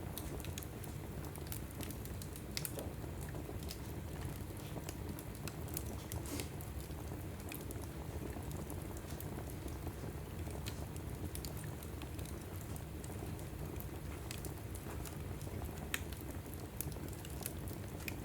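Wood fire burning in a fireplace, crackling with frequent small, sharp pops at irregular intervals over a steady low rumble.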